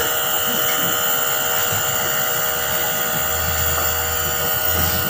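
Nebulizer compressor running with a steady buzz while it mists medicine for a baby's cough; a lower hum grows stronger about three seconds in.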